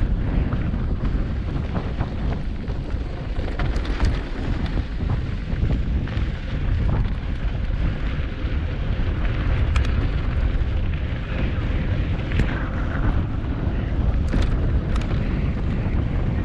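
Steady wind rumble on a mountain bike's on-board camera microphone as the bike rides over a dirt trail, with scattered clicks and rattles from the tyres and bike on the rough ground.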